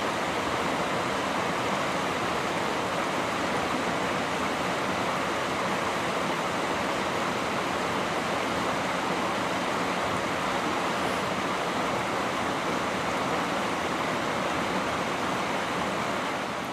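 Fast-flowing river water rushing steadily and loudly, an even wash of noise with no break.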